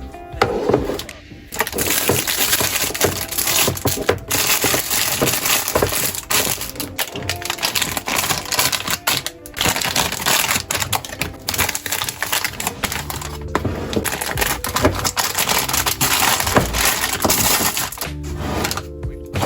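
Dense crackling and rattling from dry pantry goods and their packaging being handled, over background music.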